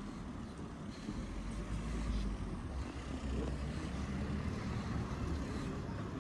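Road traffic passing on a town street: a steady low rumble of engines and tyres that grows a little louder about a second in.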